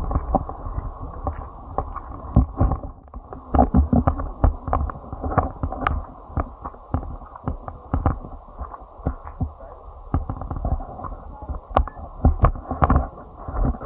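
Muffled, irregular thumps and knocks over a low rumble, dulled so that almost nothing high-pitched comes through.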